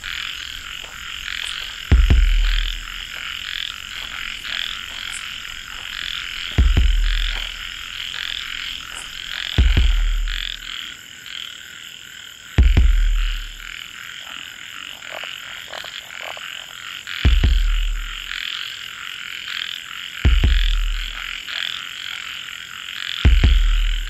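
Night chorus of frogs and insects: a steady, dense, high trilling chorus. Over it, a loud deep croak repeats about every three to five seconds.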